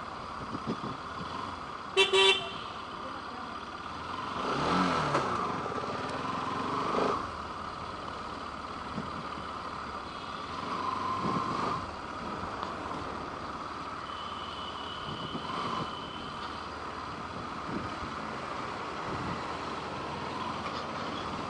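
City road traffic: vehicle engines running steadily, with a short horn toot about two seconds in.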